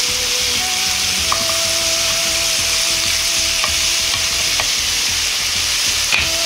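Sliced pork belly sizzling steadily in a hot nonstick frying pan over medium heat, stirred with cooking chopsticks that tap against the pan a few times.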